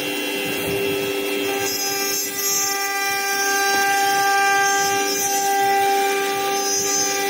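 A CNC router's 9 kW spindle running at speed while routing an MDF panel: a steady whine of several held tones over the noisy rasp of the cutting.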